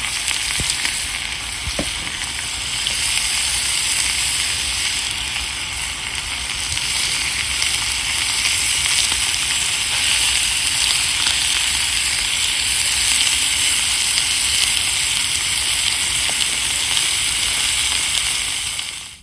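Food sizzling steadily in a frying pan, louder from about three seconds in, with a couple of light clicks near the start.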